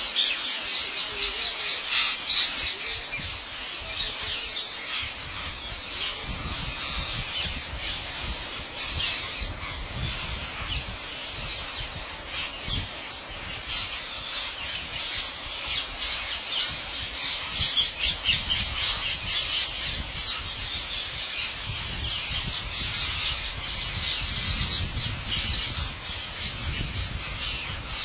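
A large flock of rose-ringed parakeets squawking all at once, a steady din of many short, shrill overlapping calls.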